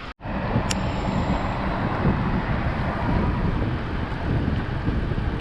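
Steady rush of wind over the microphone, mixed with the tyre and rolling noise of an e-bike being ridden, heaviest at the low end. There is one short tick about a second in.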